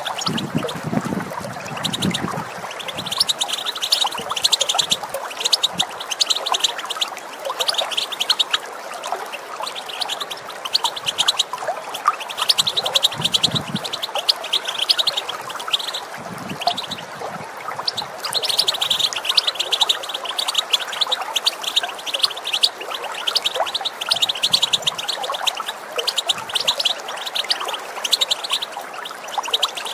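European goldfinch twittering in fast runs of high ticking notes, a few seconds at a time with short breaks, over the steady rush of running water.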